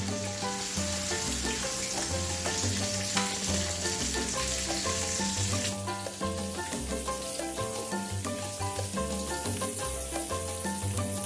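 Background instrumental music with a repeating bass line, over the steady sizzling hiss of a pot on the stove where squash is cooking in freshly added coconut milk. The hiss changes character about halfway through.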